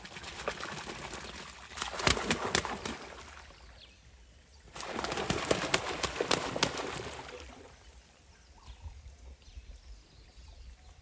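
Ducks bathing in pond water, splashing and beating their wings on the surface in two bouts, the second beginning about five seconds in, then only light dabbling.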